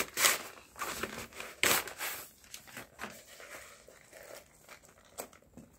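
Rustling and crinkling of a black fabric softbox and its carrier bag being pulled apart and handled. It comes in irregular bursts that are loudest in the first two seconds and then thin out, with a sharp click about five seconds in.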